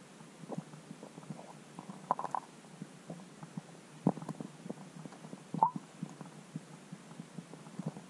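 Muffled, irregular clicks and knocks heard underwater, over a low steady hum, with louder knocks about two, four and five and a half seconds in.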